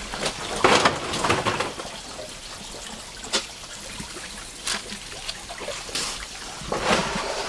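Water splashing and trickling in irregular bursts, loudest about a second in and again near the end, with a few short splashes between.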